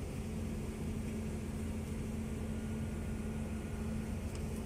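Steady low hum of a boat's running machinery, with one constant tone over a rumble.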